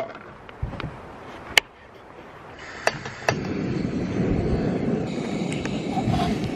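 A few sharp clicks, then about three seconds in a portable gas camp stove burner starts and runs with a steady rushing sound.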